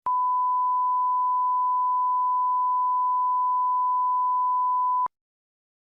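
A single steady, pure beep tone, the classic censor-bleep sound effect, held for about five seconds and then cut off suddenly.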